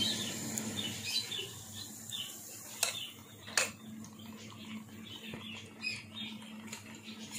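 Pancake batter sizzling and crackling in hot oil in a frying pan, with two sharp clicks about three and three and a half seconds in.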